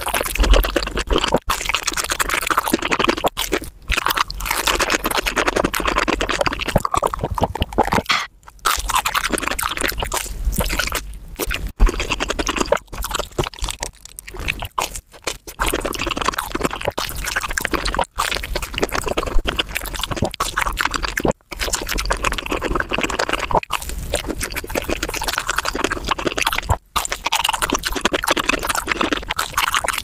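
Fast, sped-up crunching and chewing of fried corn dogs close to the microphone: a dense run of bites and chews broken by a few brief gaps.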